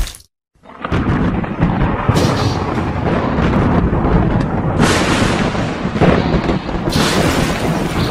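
Lightning-strike sound effects: crackling electrical bolts and thunder booms, coming in after a brief silence, with sharper strikes about two, five and seven seconds in.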